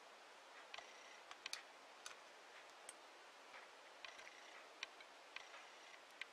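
Faint, irregular clicks and ticks of 4 mm beads and the needle knocking together as beads are picked up and stitched in brick stitch, a few with a brief ringing note.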